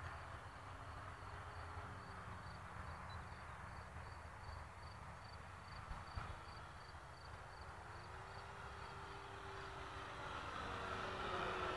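Robbe Edge 540 model aerobatic plane's motor and propeller heard from a distance, its pitch slowly rising and falling as the plane turns. It grows louder and higher near the end as the plane comes closer.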